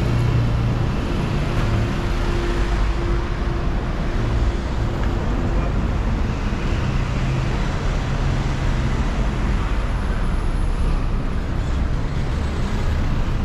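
Busy street traffic at a road junction: vehicle engines running and passing, with a steady low engine hum under a continuous wash of road noise.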